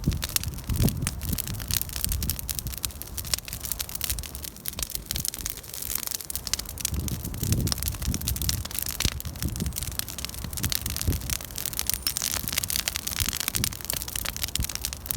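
Wood campfire crackling, with dense small pops and snaps throughout over a low rumble that comes and goes.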